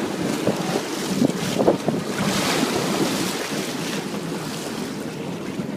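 Wind buffeting the microphone with waves washing around a boat at sea; a stronger gust of hiss swells about two seconds in.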